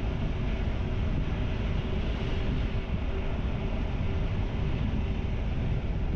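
Wind rushing over the microphone of a motorcycle riding at a steady speed, with the bike's engine humming steadily underneath.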